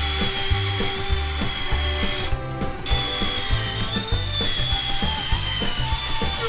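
Band saw cutting a sheet of aluminium road sign, with a steady high whine from the blade. Country background music runs underneath, and the saw sound drops out briefly about two and a half seconds in.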